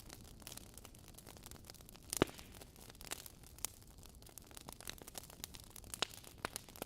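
Wood fire in a fireplace crackling: burning logs giving irregular pops and snaps over a soft hiss, with one loud snap a little over two seconds in.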